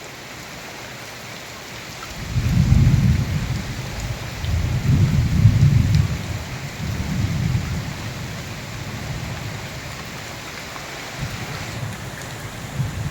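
Steady heavy rain during a cyclone, with thunder rumbling in about two seconds in, swelling twice and dying away, then a fainter rumble near the end.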